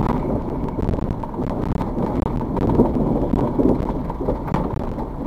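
A Toyota Fortuner driving onto and across a timber plank bridge, heard from inside the cabin: a steady rumble of tyres on the wooden deck, with scattered knocks from the boards.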